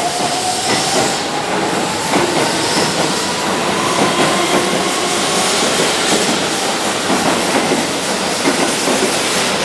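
Keihan 3000-series electric train pulling along a station platform, its motor whine rising slowly in pitch as it gathers speed over the wheels' steady clatter and rumble on the rails.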